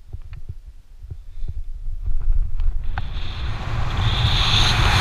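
A few light clicks and knocks, then from about three seconds in a rushing wind noise on the camera's microphone that builds steadily as the rope jumper free-falls from the mast.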